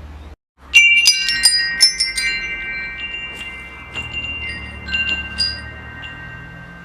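Wind chimes struck in a quick cluster about a second in, after a brief dropout of all sound. Several high tones ring on, with a few single strikes later, over a low steady rumble.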